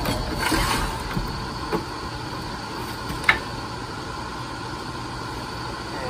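Old factory air-conditioning box being worked out from under a car's dashboard: scraping and rustling of the housing in the first second, a couple of light knocks, then a sharp clank about three seconds in. Steady background noise runs underneath.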